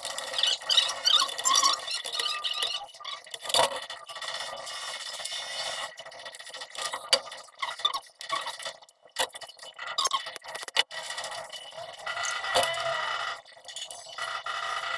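White PP-R plastic water pipes and fittings being handled and worked into place: squeaks of plastic rubbing on plastic, with scattered clicks and a couple of sharper knocks.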